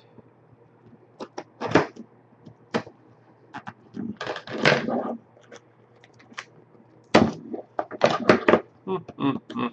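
Scissors cutting through the seal stickers on a cardboard trading-card box, then the box being picked up and handled. Irregular sharp clicks and crackles come in a cluster about four seconds in and a longer, busier one from about seven seconds.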